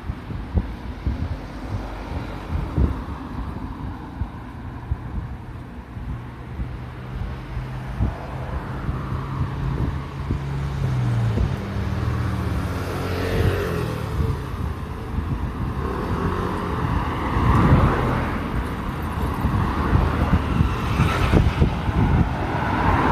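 Road traffic: cars pass close by one after another, each swelling and fading, with a steady low engine hum through the first half that drops away near the middle.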